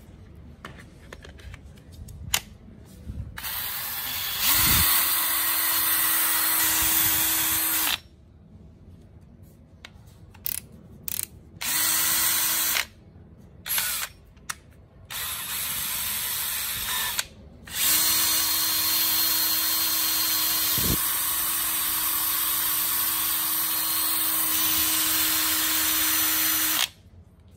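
Bosch GSB18V-755C brushless 18 V cordless drill running free with an empty chuck, switched on and off several times: one run of about four seconds, a few short bursts, then a long run of about nine seconds that stops near the end.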